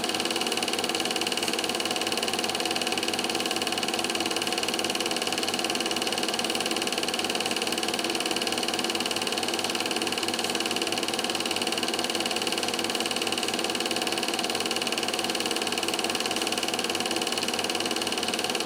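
Standard 8 film projector running, a steady mechanical whir with no change in speed or level.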